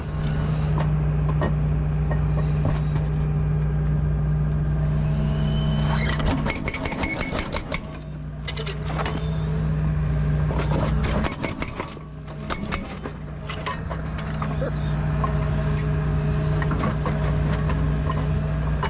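Excavator diesel engine running steadily, dropping off briefly twice, as the machine is worked into position, with irregular clanks and knocks of metal and rock through the second half.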